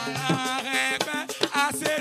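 Traditional Beninese music: a choir singing over drums and shaken percussion, with a steady beat.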